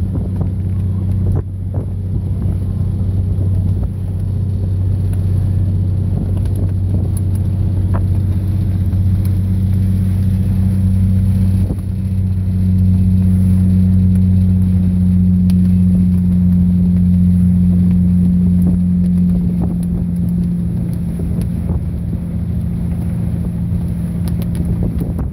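Boat engine running steadily with a low hum; the engine note shifts about halfway through and again near the end.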